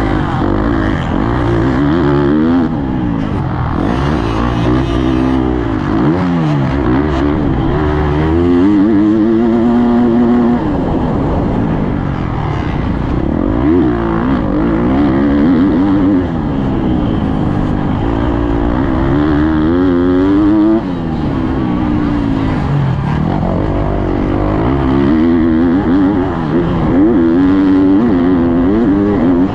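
Husqvarna motocross dirt bike's engine, heard from the rider's helmet, revving up and backing off over and over as the rider accelerates, shifts and slows for corners, its pitch climbing and falling every few seconds.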